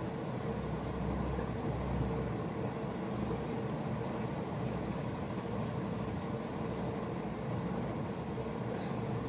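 Fingers massaging oil through long hair and over the scalp, a continuous rubbing and rustling over a steady background hum.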